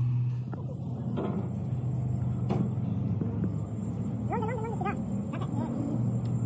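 Steady low hum of an idling engine, with a few light knocks and a short wavering call about four seconds in.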